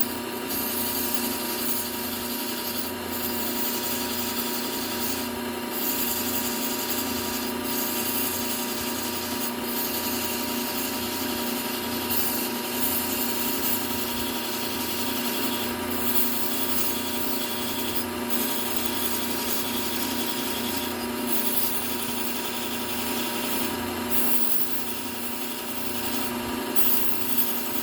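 Low-speed belt sander running, with the serrated edge of a steel kitchen knife ground against the abrasive belt in repeated passes to draw up a burr. A steady motor hum sits under a gritty hiss that breaks off briefly between passes.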